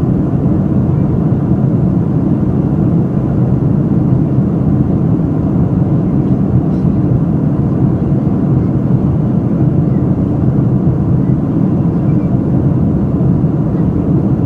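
Steady low rumble of an airliner, even and unchanging throughout.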